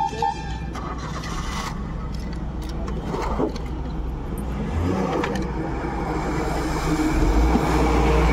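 Motor vehicle engines running with a steady low rumble, growing clearly louder about a second and a half before the end as a heavy truck passes close by.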